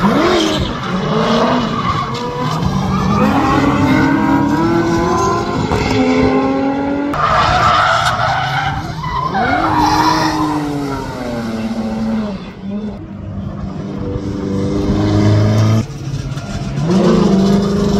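Drift cars' engines revving up and down as they slide through a corner, with tyres skidding and squealing; several cars pass in turn. The sound changes abruptly about seven and sixteen seconds in.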